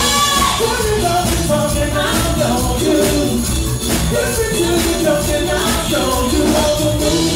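Live dance band playing with drums, bass, keyboard and Latin percussion in a steady beat, with lead vocals sung over it.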